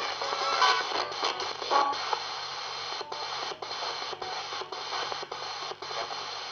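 RadioShack 20-125 radio in spirit-box sweep mode, scanning through FM frequencies. It gives a steady wash of static with brief fragments of broadcast sound, broken from about three seconds in by short dropouts about twice a second as it jumps from one frequency to the next.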